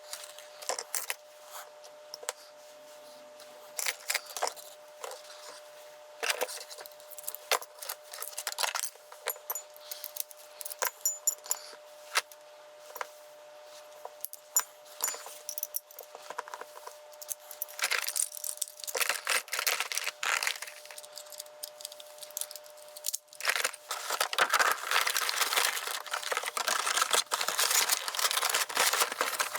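Small metal lock parts and keys being handled: scattered sharp clicks and light jangling over a faint steady hum, turning into a denser, louder rattle over the last few seconds.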